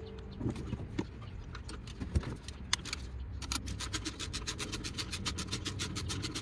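Hand tools at work on the vehicle: a few scattered knocks, then from about three and a half seconds in a fast, even run of sharp clicks, about eight a second, typical of a socket ratchet being turned.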